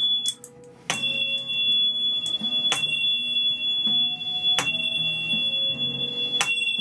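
High-pitched tuning forks from a Detox set tuned between 2048 and 5460 Hz, struck four times about every two seconds. Each strike is a sharp click followed by two steady, pure high tones that ring on until the next strike.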